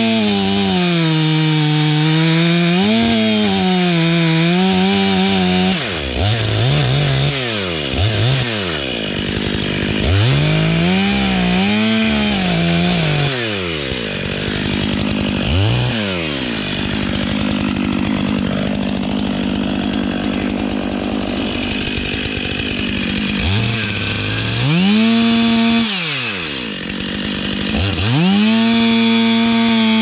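STIHL MS 500i fuel-injected two-stroke chainsaw cutting into a tree trunk during felling. The engine pitch sags and climbs again over and over as the chain bites into the wood and is eased back, with a rougher stretch of steady cutting in the middle. Near the end it holds a steady high pitch at full throttle.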